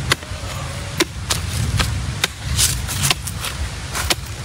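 A long-bladed knife chopping into the base of a bamboo shoot to cut it from the clump: a string of sharp blade strikes, roughly two a second, about eight or nine in all.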